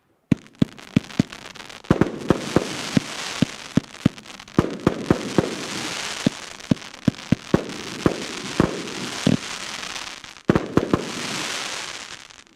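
A 120-shot consumer fireworks cake firing: a rapid string of sharp launch pops, about three a second, over a dense crackling hiss of bursting shells. The last shots come about eleven seconds in, and the hiss then dies away.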